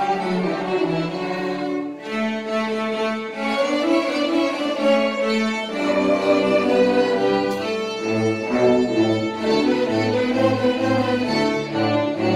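A string orchestra of violins and cellos playing live, with sustained bowed notes; about eight seconds in, the low strings take up a repeated, pulsing bass note beneath the upper parts.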